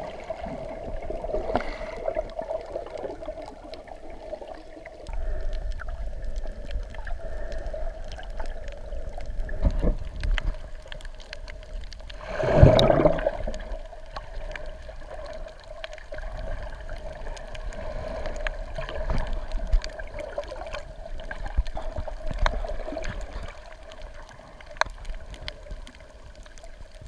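Muffled underwater sound through a camera's waterproof housing: water sloshing and gurgling past the microphone over a steady hum, with one louder rushing gurgle about halfway through.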